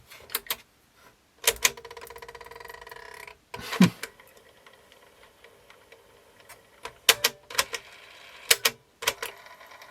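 Sony TC-WE305 cassette deck mechanism with freshly fitted belts: buttons and mechanism clicking and clunking, the tape transport running with a fluttering whirr for about two seconds, then a heavy clunk as it disengages. More clicks follow near the end. The clunk is the auto stop tripping, which is working.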